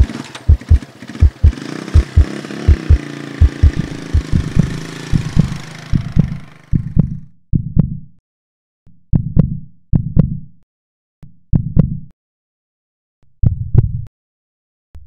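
Deep heartbeat thuds, quick and even at first, then slowing to spaced double beats. A loud rushing noise runs under the first half and fades out about seven seconds in.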